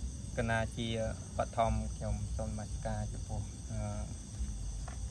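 A voice speaking over a steady, high-pitched insect chorus; the voice stops a little after four seconds in.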